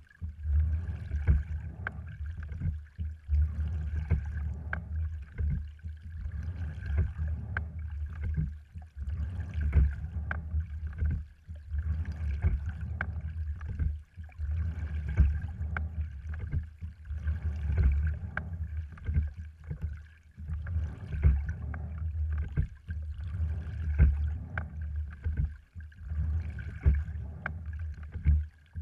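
Oars working in the oarlocks of a sliding-seat rowing wherry, a stroke about every three seconds, with sharp clicks through each stroke and water washing along the hull over a steady low rumble.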